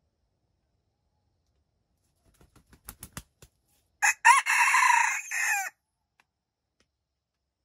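Red junglefowl rooster crowing once: a short, loud crow of under two seconds, starting with a brief opening note. A quick run of sharp claps comes about a second before it.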